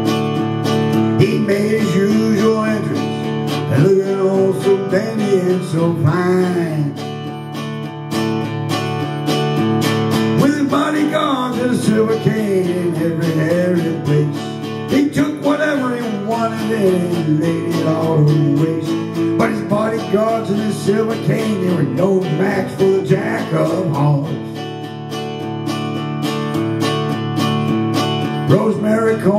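Acoustic guitar strummed in steady chords, with a voice singing a melody over it. The singing drops out for a few seconds near the end while the guitar carries on.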